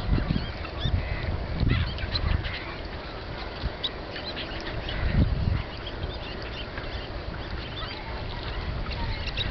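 A large flock of gulls calling on the water, many short cries overlapping throughout, with a few low rumbles underneath.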